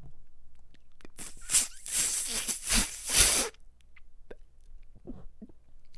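Breathy hissing and puffs of breath right on a microphone, a man straining in short bursts for about two and a half seconds starting about a second in, then only faint small clicks.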